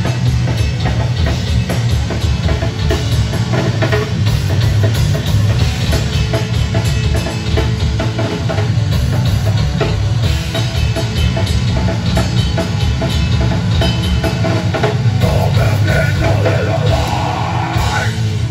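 Live heavy rock band playing loud, with drum kit, electric guitar and bass guitar together.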